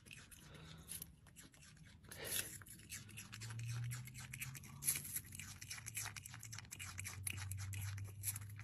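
Brushtail possum chewing a piece of fruit close up: quiet, rapid wet clicking and smacking of its mouth. A faint low hum runs underneath from about three seconds in.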